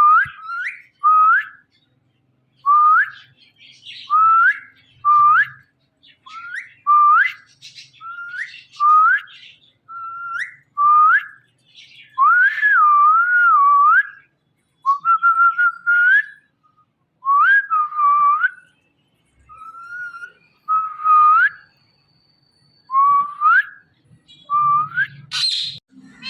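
Indian ringneck parrot whistling: a run of short, rising whistles about one a second, with a few longer wavering whistles in the middle.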